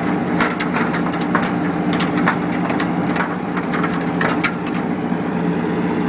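Engine of a New Holland TC57 combine harvester running steadily, with many irregular sharp crackles and snaps over it.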